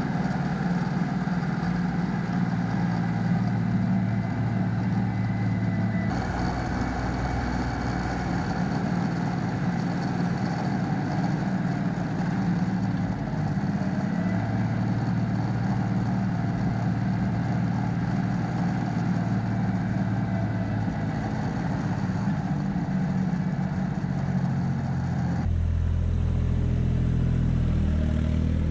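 Mitsubishi MTE2000D tractor's three-cylinder diesel engine running steadily as the tractor is driven. Its sound changes abruptly twice, about six seconds in and near the end.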